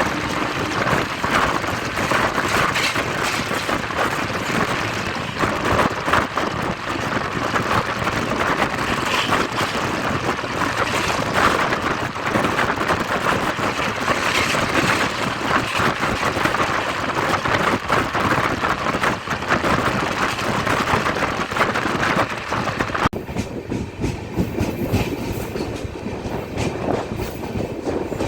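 Passenger train rushing past at high speed, its wheels clattering over the rail joints in a dense, continuous rattle. About 23 seconds in, the sound suddenly turns duller.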